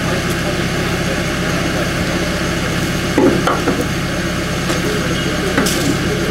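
Engine idling steadily with a low drone. A few short knocks and scrapes sound about three seconds in and again near the end as the lifting slings are handled.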